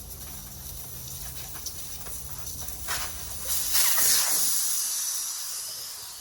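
Compressed air hissing, swelling to its loudest about four seconds in and then tapering off.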